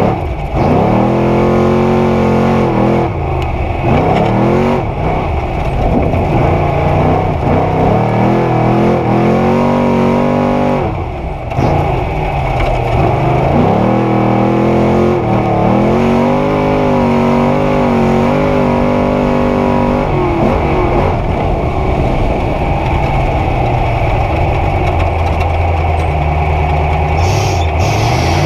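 A roughly 900 hp Trophy Truck engine heard from inside the cab. It revs hard and falls away again and again as the driver accelerates and lifts off the throttle. About two-thirds of the way in it settles to a steadier, lower note.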